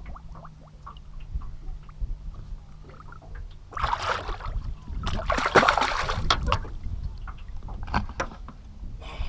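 A Murray cod splashing at the water's surface as it is let go beside a boat: a short splash about four seconds in, then a longer, louder bout of splashing as it kicks free.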